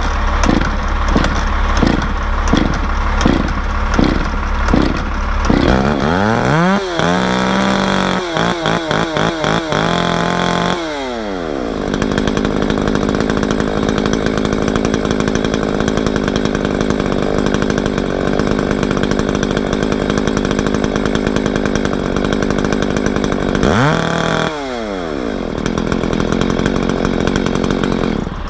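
Echo CS-6700 two-stroke chainsaw running at idle, revved up once and held for a few seconds before dropping back, then blipped briefly once more near the end.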